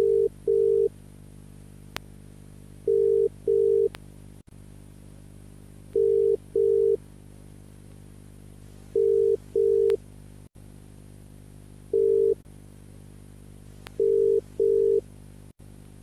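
Homemade mock emergency alert tone, said to be the South African and Brazilian alerts played in reverse: short, steady beeps at one low pitch, mostly in pairs, repeating about every three seconds over a steady low hum.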